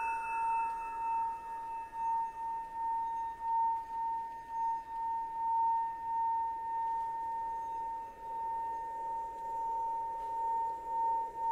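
A sustained high ringing tone, like a rubbed singing bowl, that swells and dips in a slow uneven pulse. Fainter higher tones hang above it.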